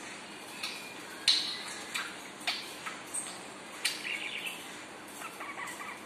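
Budgerigar chattering: short warbled phrases mixed with a handful of sharp clicks.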